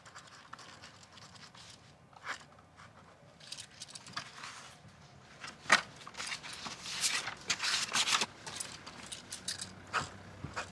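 Scattered handling noises: short clicks, scrapes and rustles, with one sharp click about halfway through and a busier stretch of rustling soon after.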